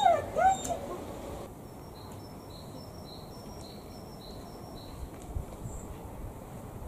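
Border collie giving two short high barks about half a second apart, followed by a small bird repeating a high two-note chirp about twice a second in the background.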